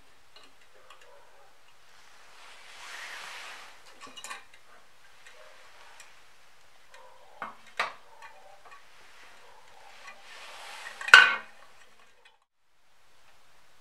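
Light knocks and rustles of handling, then a sharp clink about eleven seconds in as a glass jar of water is set down on a perforated stainless-steel cup.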